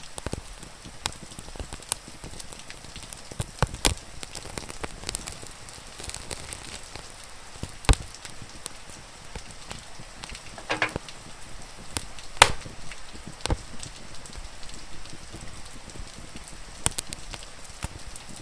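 Wood fire crackling, with irregular snaps and pops, the loudest about 8 and 12 seconds in, over a steady hiss of rain.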